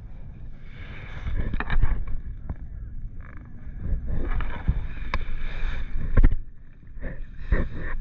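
Kayak paddle strokes splashing and dipping in shallow water, with a few sharp knocks, over a low rumble on the microphone.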